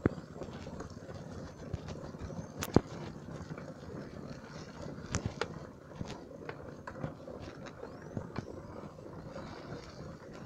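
Bicycle riding over a wet, rutted dirt road: a steady rumble of the tyres on mud, with scattered sharp clicks and knocks as the bike jolts over bumps. The loudest click comes a little under three seconds in.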